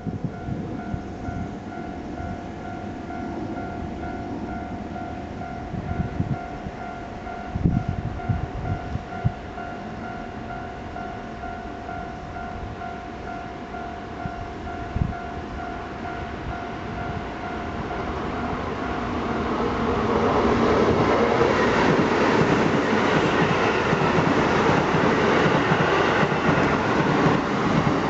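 Level-crossing warning bell ringing steadily in a repeating two-tone pattern. About two-thirds of the way in, a Keisei 3700 series electric train arrives and passes through the crossing, its wheels and running gear growing loud and staying loud to the end.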